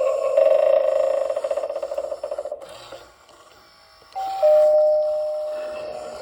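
Gemmy animated eyeball novelty doorbell playing its sound effect: a wavering pitched sound that fades out about two and a half seconds in. Then, about four seconds in, a two-note ding-dong chime sounds, higher note then lower, and rings on as it slowly fades.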